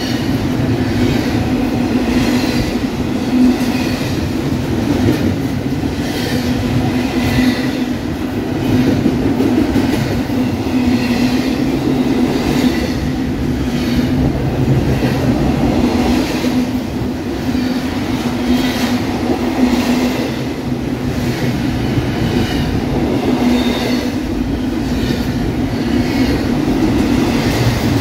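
Double-stack intermodal freight train of container-laden well cars passing close by at steady speed. Steel wheels make a continuous rolling rumble on the rail with a steady hum, and a clatter repeats about every second or so as the cars' wheelsets go by.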